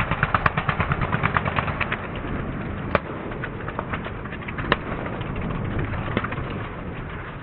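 Small engines of several racing lawn mowers running on the track. The first couple of seconds are a fast, regular popping of exhaust pulses, which then settles into a steadier drone broken by a few sharp single pops.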